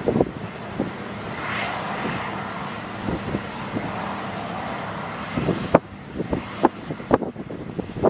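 Engines of harvesting machinery running steadily under wind noise on the microphone; from about five and a half seconds in, a string of irregular sharp thumps.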